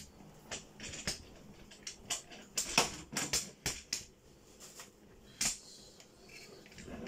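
Kitchen items being handled: irregular light clicks and knocks, coming thickest in a quick cluster through the middle, with one more knock near the end.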